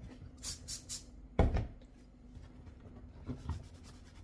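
Handling sounds while a computer mouse is wiped with a paper towel: a brief crinkle of the towel, then one solid knock about a second and a half in as something is set down on a hard surface, and two lighter taps near the end.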